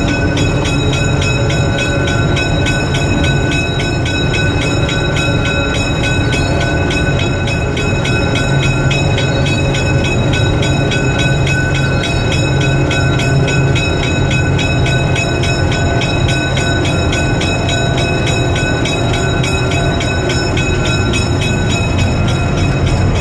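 Diesel locomotive running steadily, heard from inside the cab: a deep rumble with a thin, steady high tone over it.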